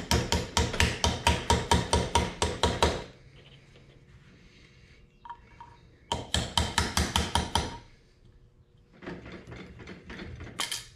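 A mallet taps a bent valve, used as a drift, to knock a stuck valve out of a 2019 Kawasaki ZX10R aluminium cylinder head. The taps come in quick runs of about five a second: one run at the start, another in the middle, and softer taps near the end finishing with one harder strike.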